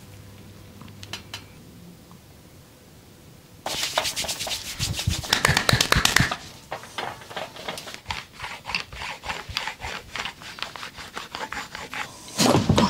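Quick rhythmic rubbing strokes, several a second, start suddenly about four seconds in and run on with a louder burst of rubbing near the end.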